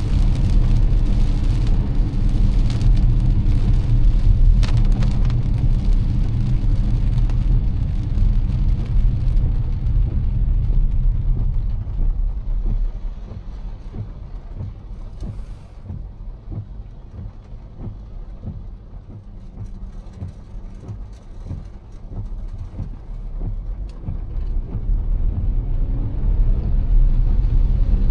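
Car driving in heavy rain: a low road and engine rumble with rain hitting the car. About halfway through the rumble falls away, leaving a patter of drops, then it builds again near the end.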